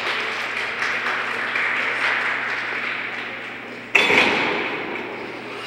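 Audience applauding in an ice rink, with a sudden louder burst about four seconds in that then fades.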